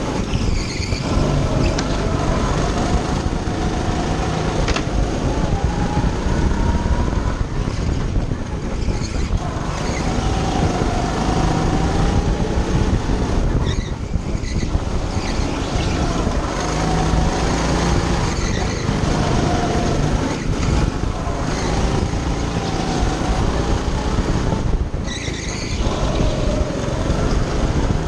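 Go-kart engine heard from the driver's seat, its pitch climbing on the straights and falling away into the corners again and again. The engine drops off briefly about three times.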